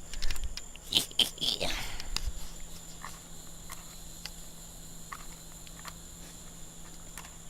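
Firework crackling: a dense run of sharp pops and snaps for about two seconds, then single pops here and there.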